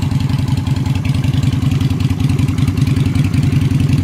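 Yamaha XV250 Virago's air-cooled V-twin idling steadily through homemade open drag pipes, with a rapid, even beat. Its mixture screw has just been backed out a quarter turn, and the lean popping is gone.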